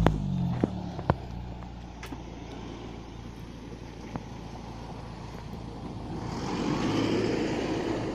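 Mitsubishi Lancer's exhaust through an HKS Hi-Power big-can muffler: sharp pops in the first second or so as the revs drop, a couple of fainter pops later, then the engine idling steadily. A noisy swell rises and falls near the end.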